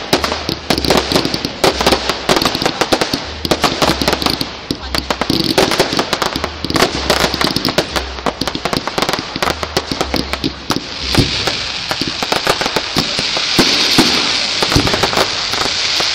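Fireworks display: a dense run of rapid crackling pops. About eleven seconds in it thickens into a sustained fizzing crackle.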